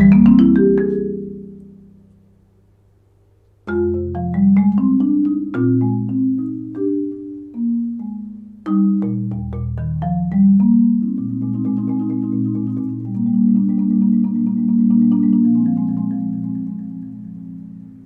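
Concert marimba played with four graduated 0gravity Percussion Jupiter yarn mallets. Ringing low notes die away about two seconds in, a phrase of separate struck notes starts near four seconds, and rolled chords are held in the later part before fading near the end. The tone is big and warm, with hardly any mallet contact sound.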